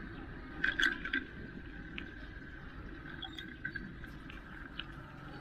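Mountain bike rolling on a concrete road, with steady tyre and wind noise and a few sharp rattling clicks about a second in.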